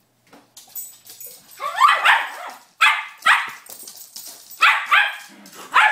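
Dog barking excitedly at its toy car in play: short, sharp barks, mostly in quick pairs, about seven in all, starting about two seconds in.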